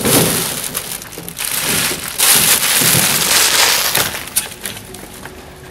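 Clear plastic bag crinkling and rustling as it is handled around a wicker basket, loudest from about two to four seconds in, then fading out.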